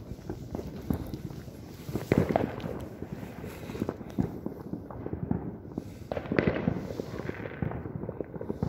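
Fireworks and firecrackers going off all around in a dense, irregular crackle of pops and bangs. Louder clusters of bangs come about two seconds in and again after six seconds.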